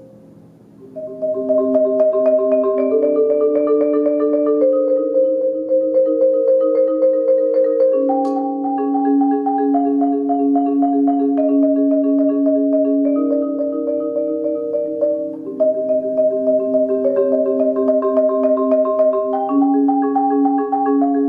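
Yamaha marimba with synthetic Acoustalon bars played with four mallets: a slow chorale of rolled chords, the rapid mallet strokes sustaining each chord while the harmony shifts every second or two. The playing dips almost to nothing at the start and comes back in about a second in.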